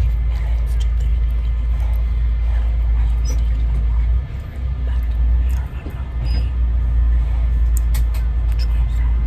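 Steady low road rumble inside a moving vehicle, dipping briefly twice near the middle, with a few faint clicks.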